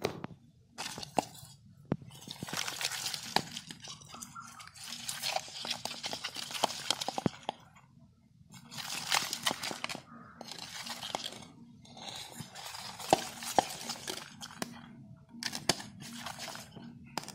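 Live climbing perch splashing and flapping in shallow water in a stainless steel bowl, wet slaps with sharp clinks against the metal. The splashing comes in spells of a few seconds with short lulls between.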